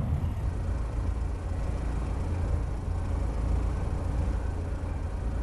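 Kawasaki Ninja H2R's supercharged inline-four engine idling with a low, steady rumble.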